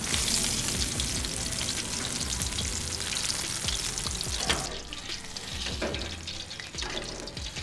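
Flour-battered peacock bass pieces deep-frying in hot oil in a wok: a steady sizzle with fine crackles that drops away sharply about four and a half seconds in. A sharp metal clink from the tongs on the pan comes just before the sizzle drops, and a few fainter clicks follow.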